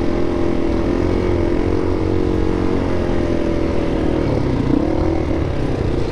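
400 cc single-cylinder dual-sport motorcycle engine running at a steady, moderate speed, with small throttle changes about a second in and again around five seconds in.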